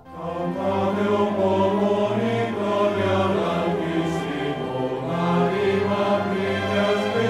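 Choral music: a choir singing slow, sustained chords, fading in at the start.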